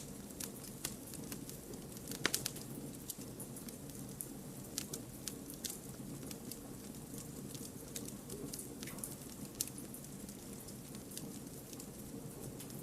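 Campfire of burning firewood, crackling with irregular sharp pops over a steady low hiss, a brief cluster of louder pops about two seconds in.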